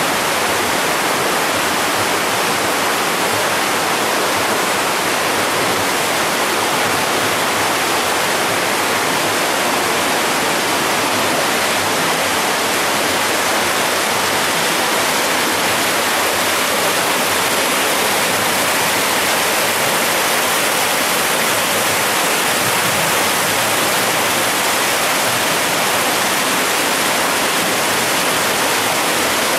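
Fast, clear stream rushing over boulders in a rocky riverbed: a steady, loud rush of water with no breaks.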